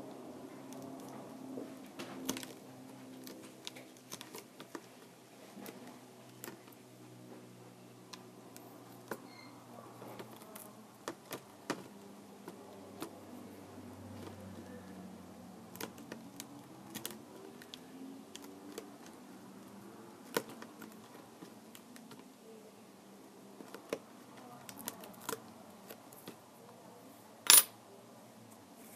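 Scattered small clicks and taps of tools and small parts being handled on a work surface while a tablet is taken apart, with one louder sharp click near the end.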